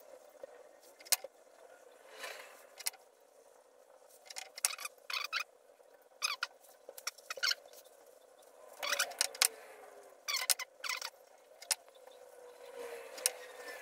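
Faint, irregular scratching and rubbing with a few sharp clicks, from hand work on a wooden bowl, over a faint steady hum.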